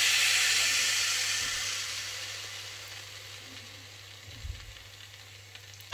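Rice-flour batter hitting hot coconut oil in a pan, sizzling. The sizzle fades steadily over the first few seconds as the batter settles, with a faint low hum underneath.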